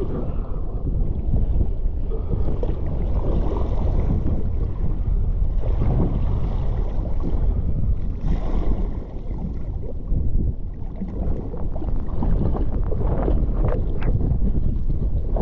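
Sea-Doo Spark Trixx jet ski running across choppy sea, its engine and rushing water buried under heavy wind noise on the microphone. Spray splashes over the hull, with louder surges about six and eight seconds in, a brief drop in level just after, and sharp slaps near the end.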